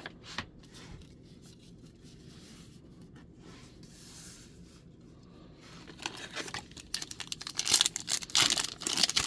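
A few faint clicks of cards and objects being moved, then from about six seconds in a loud, dense crinkling and tearing of a foil booster-pack wrapper being ripped open.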